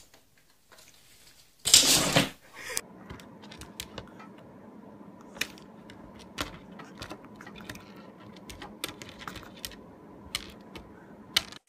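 A loud burst of noise about two seconds in. After it, a chihuahua's claws tap and scrape on a hard glossy tabletop as it paws at a piece of kibble: scattered sharp clicks over a steady low hum.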